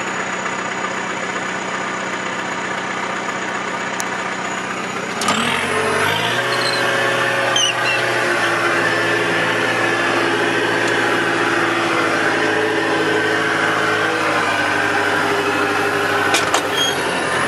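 Engine of a John Deere machine running steadily; about five seconds in it speeds up, rising in pitch and getting louder, then holds at the higher speed.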